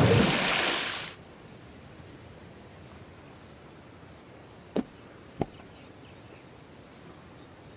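A loud noisy swell fades out over the first second. Then a quiet stretch with faint high chirps repeating over and over, and two sharp clicks about half a second apart midway through.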